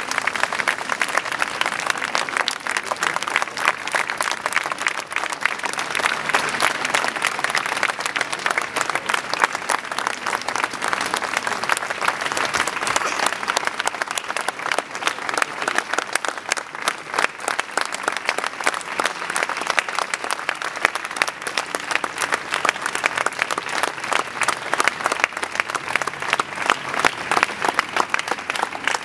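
Large crowd applauding at length, dense continuous clapping with no break.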